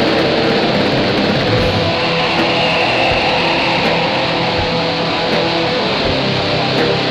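Raw, lo-fi black metal: a dense wall of distorted electric guitar, even in loudness throughout.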